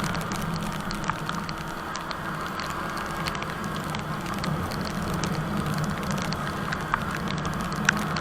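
Yamaha R15 V3 motorcycle on the move: a steady low engine drone under crackling, hissing noise scattered with small clicks, as picked up by a camera riding on the bike.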